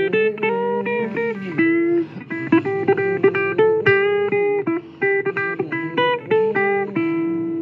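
Blues guitar playing an instrumental break between vocal lines: a run of single lead notes, many of them bent up and down, over sustained lower chords.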